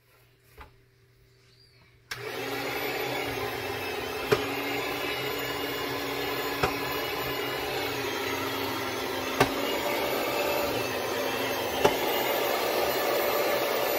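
Electric food slicer's motor switches on about two seconds in and runs steadily as its spinning round blade slices venison thin for jerky. A sharp click comes every two to three seconds, four in all, and the motor shuts off at the very end.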